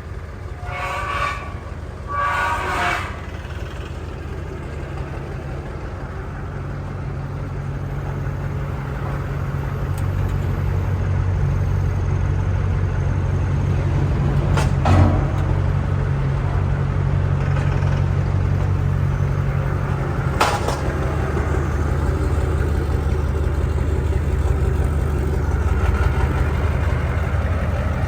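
Steady low drone of a 1994 Ford F-250 pickup's 7.3-litre V8 diesel heard from inside the cab while driving, building over the first several seconds and then holding, with a couple of sharp clicks in the middle.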